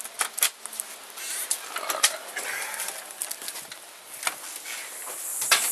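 Handling noise as the camera and a plastic bag are carried: scattered knocks and clicks, a brief squeak about two seconds in, and a crinkling hiss of the plastic bag near the end.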